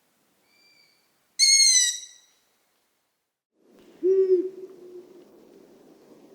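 Long-eared owl calls: a faint high whistle, then one loud, high, squeaky call lasting under a second. Then, in a different recording, a single short low hoot of the kind the male gives.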